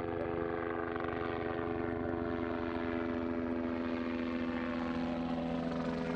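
Helicopter flying low overhead: a steady turbine whine over the fast beat of the rotor blades. The pitch dips slightly near the end as it moves away.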